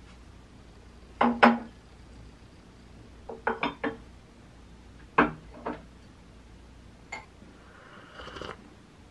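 Ceramic tableware set down on a table: a plate, then a cup on its saucer. Sharp clinks and knocks: two about a second in, a quick cluster of four around three and a half seconds, two more around five seconds, then a soft rustle near the end.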